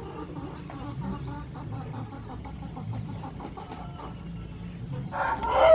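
Chickens clucking, faintly at first, then one loud call from a chicken near the end.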